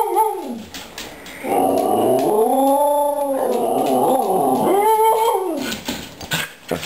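Dog yodelling for a treat. A brief wavering call comes right at the start, then a long drawn-out call that rises and falls in pitch over about three seconds, and a shorter arched call about five seconds in.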